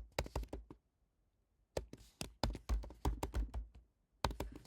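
Typing on a computer keyboard: quick runs of keystrokes, with a pause of about a second near the start.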